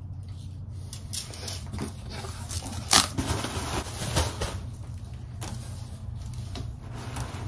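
A large cardboard box being opened: flaps folded back and packing material rustled, with a sharp snap about three seconds in and a knock a second later. A steady low hum runs underneath.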